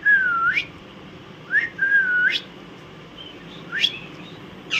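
Alexandrine parakeet whistling: two long whistles, each a held tone that ends in a sharp upward sweep, then a short rising whistle near the end.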